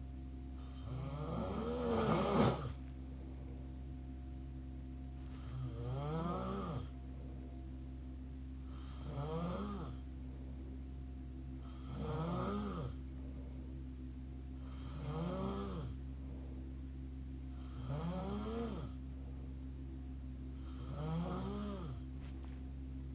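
Mouth snoring: seven snores about three seconds apart, each rising then falling in pitch, the first one loudest, over a steady background hum.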